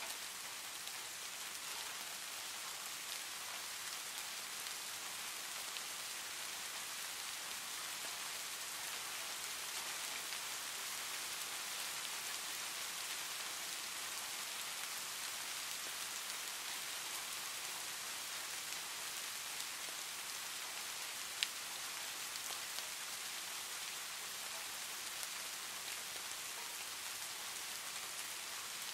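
Steady rain falling, an even hiss with no let-up, broken once by a single sharp click about two-thirds of the way through.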